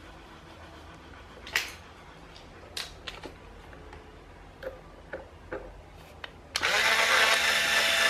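A few light clicks and taps, then about six and a half seconds in a cordless power screwdriver runs steadily for about a second and a half, driving a screw into the plastic oscillation gearbox of an electric fan's motor.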